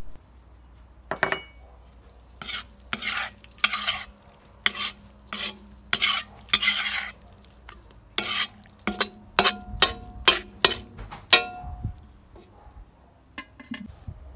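A perforated metal skimmer stirring meat, carrot and onion zirvak in a cast-iron kazan. It makes a run of scraping strokes against the pot, several ending in a ringing metal clink, coming faster towards the end.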